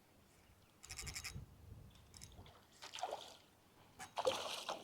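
Water splashing and sloshing in short bursts, about a second in, around three seconds and again near the end, as a hooked smallmouth bass thrashes at the surface while it is reeled in.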